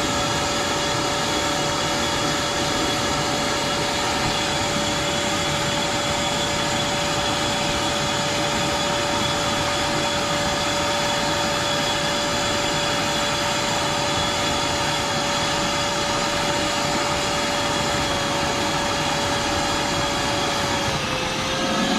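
Shop-Vac wet/dry vacuum, converted to a pond vacuum, running steadily as it sucks water and debris from the pond bottom through its extension wands: a steady whine over rushing noise that dips slightly in pitch near the end.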